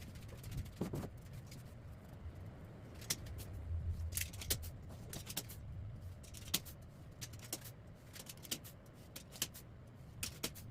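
Irregular light clicks and metallic clinks of hand tools and small metal parts being handled, several a second at times, over a low steady hum.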